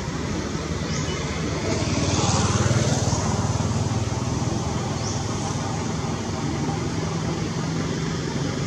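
A motor vehicle's engine running with a steady low hum, growing louder about two to three seconds in and then holding steady.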